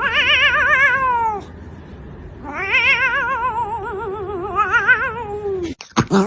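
A cat yowling: two long, drawn-out calls with a quick, wavering pitch, the second longer and rising then slowly falling.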